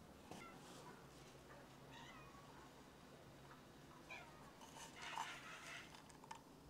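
A cat meowing faintly several times, in short rising and falling calls.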